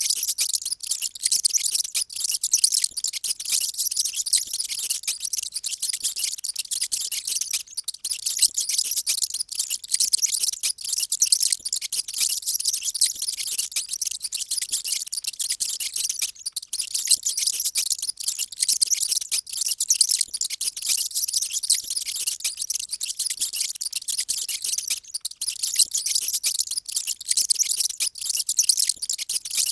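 Many mice squeaking at once, a dense, continuous high-pitched chatter of rapid overlapping squeaks.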